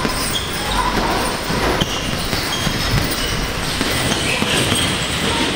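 Boxing gloves thudding on heavy punching bags: repeated, irregular blows over a steady background of gym noise.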